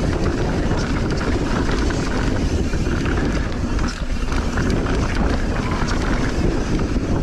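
Wind buffeting the microphone and the steady rumble of a mountain bike rolling fast down a dirt trail, with tyres on loose dirt and many small knocks and rattles from the bike.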